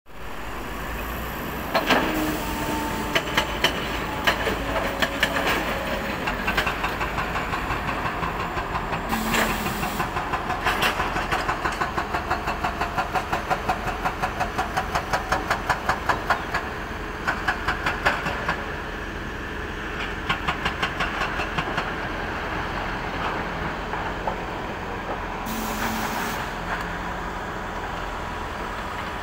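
Diesel engines of heavy quarry machinery running, a wheel loader and an excavator, with a steady rumble. Through the middle comes a run of sharp regular clicks, about three a second, and there are two short hissing bursts, about nine seconds in and near the end.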